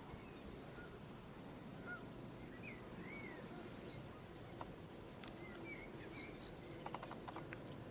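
Small birds calling in the open: scattered short chirps and whistled notes, busier near the end, over a low steady background rumble.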